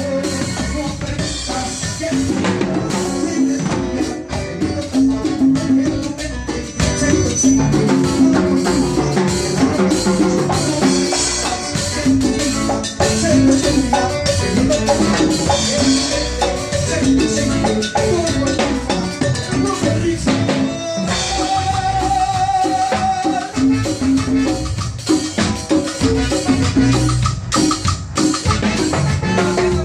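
Music with a steady beat, drums and percussion, playing loudly without a break.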